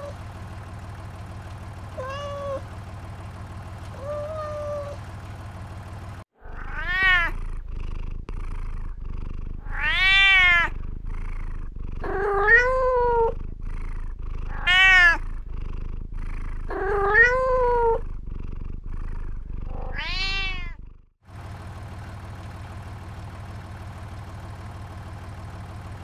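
Domestic cat meowing: six loud, drawn-out meows, each rising and then falling in pitch, spaced a couple of seconds apart through the middle, with two fainter short calls before them.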